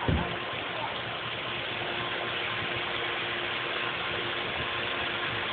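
Steady background hiss with a faint steady hum under it, and a brief low thump right at the start.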